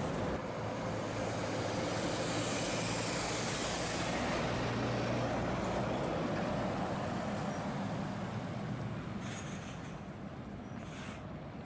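Heavy lorry running and moving past, a steady engine drone with tyre and road noise that eases off after about eight seconds. Two short high hisses near the end.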